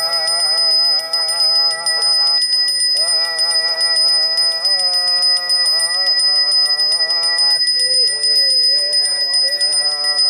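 A Balinese priest's hand bell (genta) ringing without a break, a fast shimmering clatter with steady high ringing tones. Under it, a prayer is chanted in long, wavering held notes that pause briefly twice.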